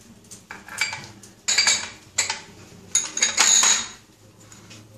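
A steel spoon clinking and scraping against small glass bowls as soy sauce is spooned onto raw chicken pieces: a string of sharp clinks, the loudest and most ringing about three seconds in.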